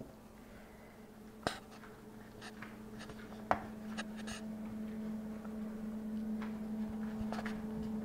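A steady low electrical hum, growing a little louder after the middle, under a few sharp clicks and light scraping as biscuit dough and utensils are handled on a baking pan.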